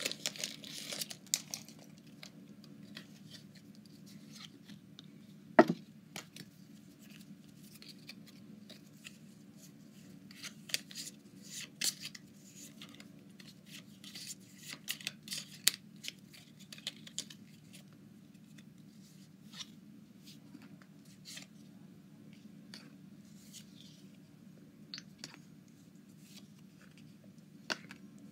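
Soft, scattered rustles and light clicks of Pokémon trading cards and foil booster-pack wrappers being handled, with one sharper click about five and a half seconds in and another near the end. A faint, steady low hum runs underneath.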